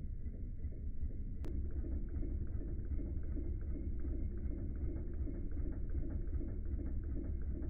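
Wilesco D16 model steam engine running, a low rumble with a quick, even mechanical ticking, heard slowed down. A sharp click about one and a half seconds in, after which the ticking is steadier and more distinct.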